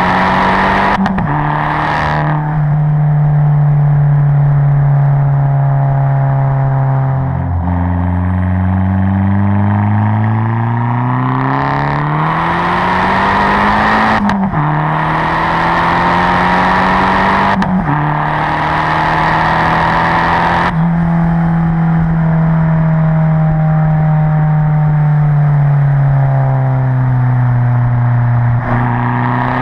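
Abarth 500 esseesse's turbocharged 1.4-litre four-cylinder, with a Garrett 1446 turbo and Officine Caroleo aftermarket exhaust, driving under way. It runs at fairly steady revs, pulls up hard in one gear about a third of the way in, and is interrupted by several short breaks, most followed by a drop in pitch, as gears are changed.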